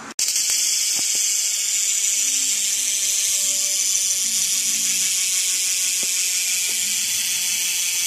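BMX rear hub freewheeling as the wheel spins, its ratchet pawls clicking so fast they blend into a steady high buzz. It starts suddenly near the beginning and holds even throughout.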